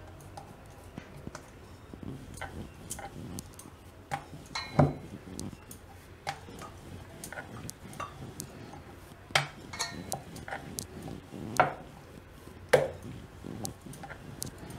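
Bhatura dough being rolled out with a wooden rolling pin on a round wooden board: scattered light clicks and knocks of the pin and the roller's bangles against the board, with a few sharper taps.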